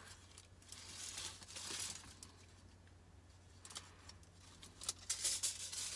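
Aluminium foil and paper liner crinkling and tearing as they are peeled and unrolled from a cut-open electrolytic capacitor, in soft spells of rustling with a few sharp clicks near the end.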